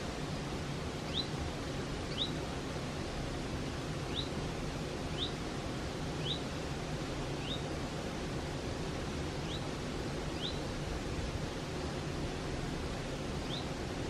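Mountain stream flowing over rocks, a steady rushing water noise. Above it, a bird gives short rising chirps, about nine in all, mostly about a second apart.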